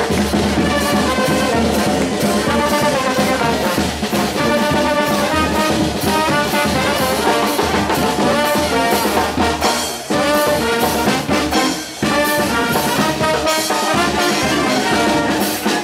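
Charanga brass band playing a lively tune, trumpets and trombones together over a steady beat, with two brief breaks about ten and twelve seconds in.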